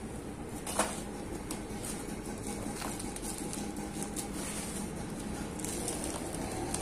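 A dry sand-and-cement bowl crumbling in the fingers, with fine powder and small lumps falling onto a pile of dry sand. Scattered small crunches and clicks run through a steady grainy hiss, with a sharper crunch about a second in.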